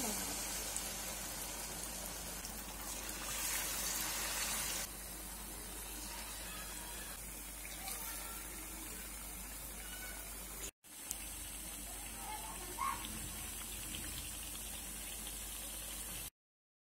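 Battered cauliflower pakoras sizzling in deep oil: a steady frying hiss. It drops in loudness about five seconds in, breaks off for an instant about two-thirds through, and cuts off just before the end.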